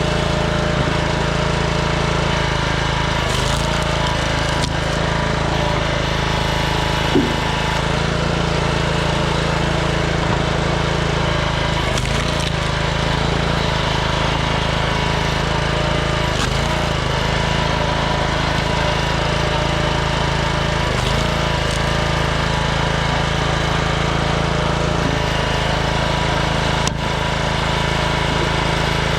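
Small gas engine of a Troy-Bilt log splitter running steadily at constant speed, with a few faint knocks over it.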